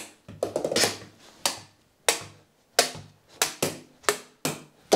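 A hollow plastic floorball being tapped again and again with a floorball stick's blade as it bounces back off a mattress: about ten sharp, irregularly spaced clicks.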